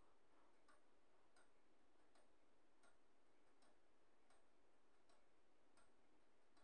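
Near silence with faint, even ticking, about one tick every three-quarters of a second.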